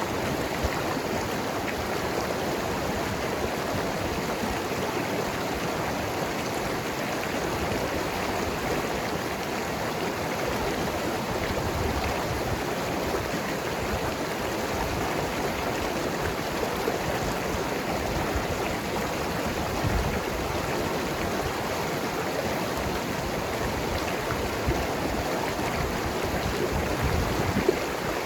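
Mountain river flowing over rocks, a steady rushing and gurgling of water with small splashes here and there.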